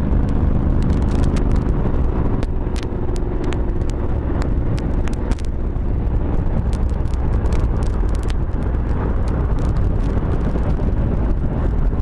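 Vehicle running at highway speed: engine drone with road and wind rumble. The engine's steady tone fades about five seconds in, leaving a low rumble with scattered clicks.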